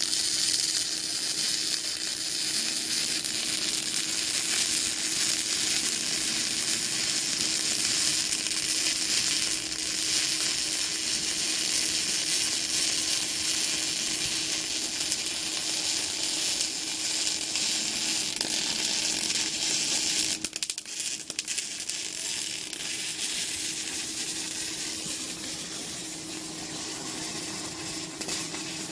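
Jasic 250A MIG welder arc welding, a continuous frying crackle and sizzle with a steady hum underneath. The arc breaks off briefly about twenty seconds in, then carries on a little quieter.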